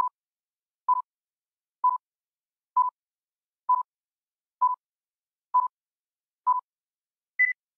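Electronic countdown timer beeps: a short mid-pitched beep about once a second, eight in all, then a single higher-pitched beep near the end as the count runs out.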